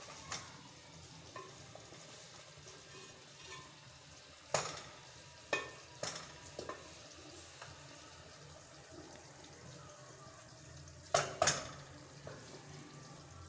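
Faint steady kitchen background broken by scattered sharp clinks and knocks of kitchenware, the loudest a quick double knock about eleven seconds in.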